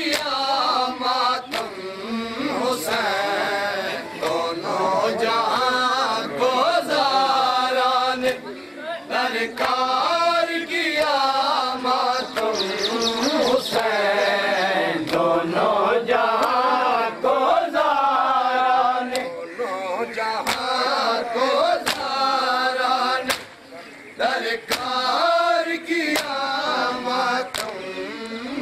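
Voices chanting a noha, a Shia mourning lament, in Urdu, over sharp slaps of hands beating on bare chests in matam. The chanting dips briefly a little after the middle, then carries on.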